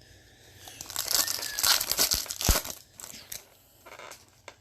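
A foil trading-card pack wrapper being torn open and crinkled, with a couple of sharp clicks in the middle and softer rustling near the end.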